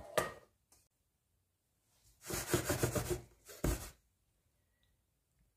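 Sour cherries being spread by hand over a biscuit base in a metal springform pan, with the pan handled on the worktop: a brief clatter at the start, then about two seconds of rubbing and scraping.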